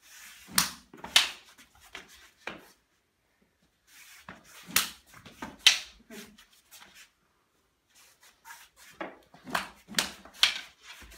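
Rattan sticks clacking and hands slapping during a stick strike-and-disarm drill: sharp wooden knocks in three quick clusters separated by short pauses.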